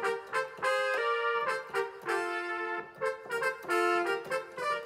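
Roland XP-10 synthesizer played with a trumpet-like brass patch: a single-note melody of short notes, with a few held longer.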